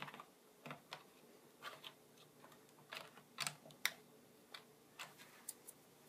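Faint, irregular clicks and taps as a DDR2 SO-DIMM memory module is pushed into the memory slot of a white plastic MacBook, with a hand handling the case.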